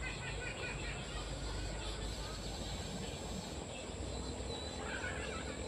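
Quiet riverside ambience: a steady low rumble and a thin steady high-pitched tone, with a few short faint chirps in the second half.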